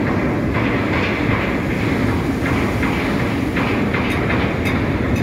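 A ship's engine rumbling steadily, with propeller wash churning the water and short gusts of hiss about once a second.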